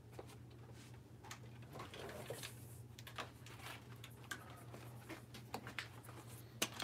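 Faint handling noise: scattered light clicks, taps and rustles over a low steady hum.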